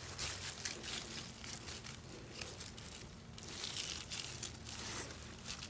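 Knife slicing into a borer-damaged squash vine stem: crisp crackling and tearing as the blade cuts the fibrous stem, in bunches near the start and again past the middle.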